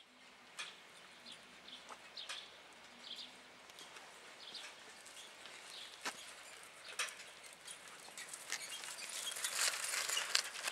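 Small birds chirping in short repeated calls, while a bicycle rattles and ticks, growing louder near the end as it comes close.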